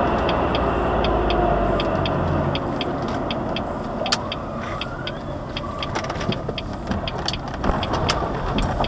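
Turn-signal relay ticking steadily, about two ticks a second, inside the cabin of a 2003 Jaguar X-Type 2.5 V6 as it slows and turns. The engine hum drops away about two and a half seconds in, and a few irregular knocks come near the end.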